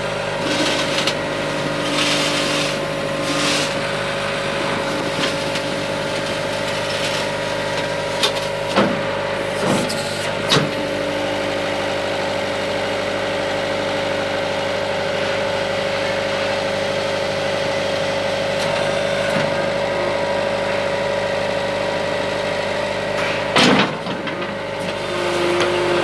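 UniCarriers 711 skid steer loader engine running steadily at idle. Several sharp clunks sound between about 8 and 11 seconds in, and a louder one near the end.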